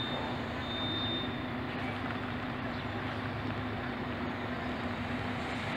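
Double-decker coach's diesel engine running steadily as the bus pulls slowly across the yard, a low hum. A high-pitched beep sounds a few times near the start.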